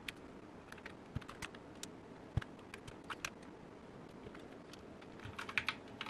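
Scattered sharp plastic clicks from a mechanical keyboard as keycaps are pulled off and round replacement keycaps are pressed onto the switches, with a couple of dull knocks and a quicker run of clicks near the end.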